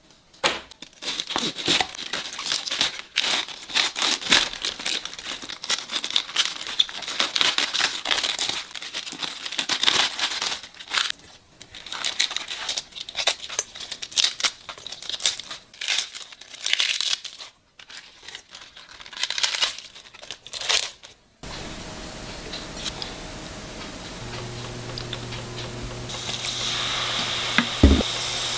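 Iceberg lettuce leaves being torn apart by hand, a long irregular run of crisp crackling tears. After a cut about three-quarters through comes a quieter stretch with a low steady hum and a single knock near the end.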